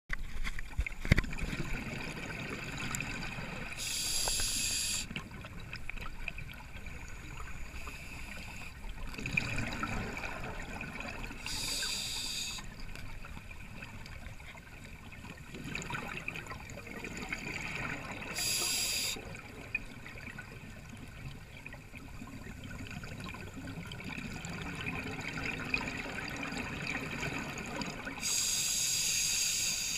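Scuba diver breathing underwater through a regulator: four bursts of exhaled bubbles several seconds apart, the last and longest near the end, with a low steady water murmur between them.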